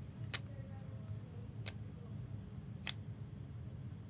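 Trading cards being handled during the break: three sharp clicks, a little over a second apart, over a steady low hum.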